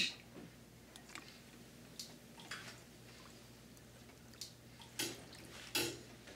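A ladle scooping borscht out of a cooking pot: a few short, soft liquid splashes and sloshes, the loudest about five and six seconds in.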